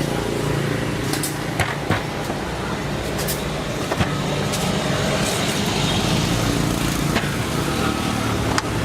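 A steady mechanical hum with even background noise, broken by a few sharp clicks.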